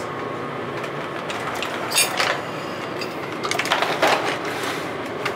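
Butter sizzling steadily as it browns in a frying pan. A sharp click comes about two seconds in, then a stretch of clatter and cardboard rustling near four seconds as eggs are taken from their carton.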